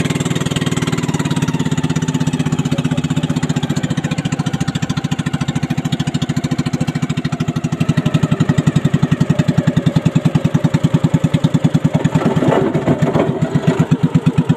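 Engine of a small wooden motorboat running under way, with an even rapid beat and water hissing past the hull. The beat grows louder and more distinct about eight seconds in.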